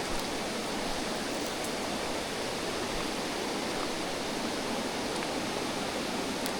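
Mountain stream rushing steadily over rocks, a constant water noise without a break.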